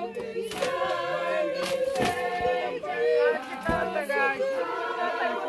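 A group of people singing together unaccompanied, with talking mixed in and a few short knocks in the first two seconds.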